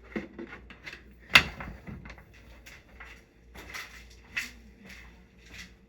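Scattered clicks and knocks of objects being handled or moved, with one sharp knock about a second and a half in.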